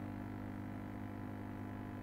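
Steady low electrical hum made of several held tones, unchanging, from the running ultrasonic test equipment.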